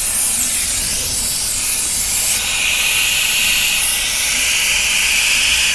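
Compressed air hissing steadily from a gas-station air hose's chuck on a tire valve stem as the tire is inflated. A higher note joins the hiss about two and a half seconds in.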